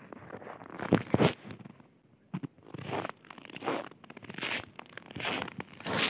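Footsteps crunching in snow at a walking pace, about one step every three-quarters of a second, the loudest two about a second in.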